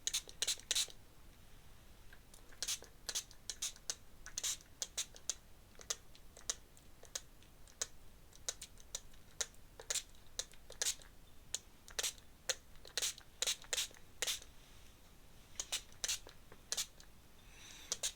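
Pen scratching on sketchbook paper in many short, irregular strokes, some in quick clusters.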